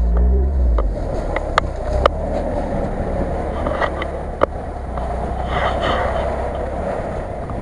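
Lada Niva 1600's four-cylinder engine running steadily as the car pushes slowly through deep snow, with a few sharp clicks along the way.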